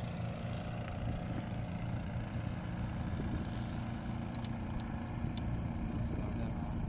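Steady low drone of a running engine, holding one pitch throughout.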